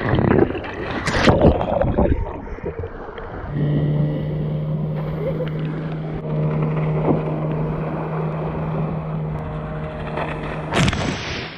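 Water splashing against a towed inflatable, then from about three and a half seconds in a small boat's outboard motor running steadily at constant speed, with a sudden loud burst of noise near the end.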